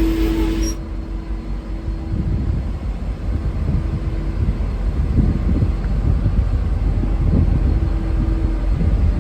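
V/Line N class diesel-electric locomotive: its Leslie RS5T air horn stops sharply less than a second in. Then the locomotive's EMD V12 diesel engine rumbles under power with repeated surges.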